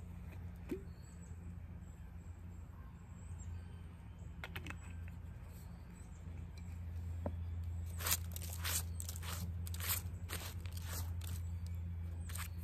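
Close handling sounds: a run of sharp clicks and crackles, about one every half second, starting about two-thirds of the way in, from a small glass bottle and its cap being handled and set down and from hands moving over dry leaves. A steady low hum runs underneath.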